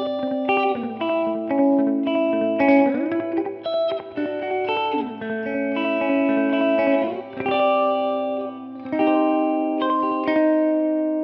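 Fender Jazzmaster Modern Player electric guitar played through an Ibanez DE-7 delay pedal into a simulated Fender Princeton Reverb amp. It plays a melodic line of single notes with string bends, then a chord held to ring out near the end.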